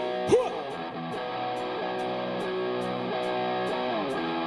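Live rock band playing an instrumental intro, led by a Stratocaster-style electric guitar playing sustained chords over a steady beat with even high ticks about two and a half a second. There is a brief rising pitch slide about a third of a second in and a falling slide near the end.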